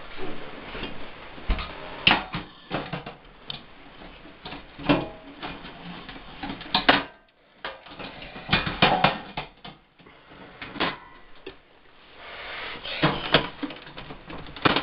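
Irregular knocks, clicks and clunks of a Dell desktop computer's case being handled and put back together.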